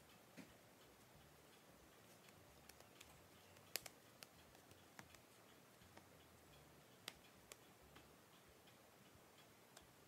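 Near silence broken by scattered faint clicks and taps from hands kneading bread dough on a countertop, irregular, with the sharpest two just before four seconds in and about seven seconds in.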